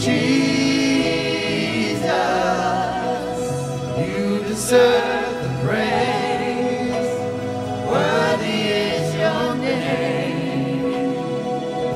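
Christian worship song: voices singing slow, long held notes with vibrato over steady instrumental accompaniment.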